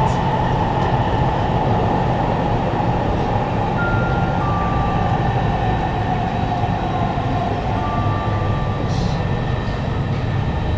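Kawasaki Heavy Industries C151 MRT train (GTO-VVVF variant) heard from inside the carriage while running: a steady, loud rumble of the train in motion, with a whine that slowly falls in pitch and a few short higher tones about four and eight seconds in.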